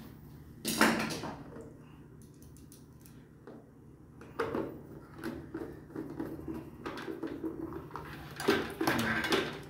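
Small metal clicks and rattles of a screwdriver turning a terminal screw and wires being handled at the wiring terminal of an electric water heater. A single sharp knock comes about a second in, and the clicks come in a loose run through the second half, thickest near the end.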